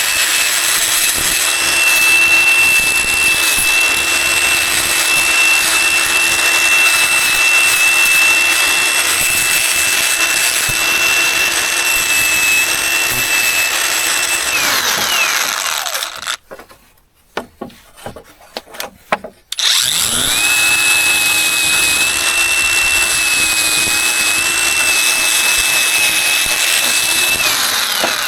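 Small electric power tool running steadily with a high whine, winding down and stopping about halfway, with a few light clicks and knocks while it is off. It then spins back up, runs again and winds down near the end.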